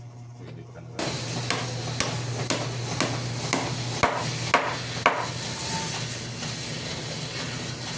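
Hammer blows on wood, about two a second, starting suddenly about a second in and stopping after about eight strikes, over a steady low hum.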